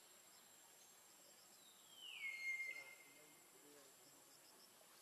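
Faint insect chirping. About two seconds in, a single high whistled call slides down in pitch, then holds steady for under a second.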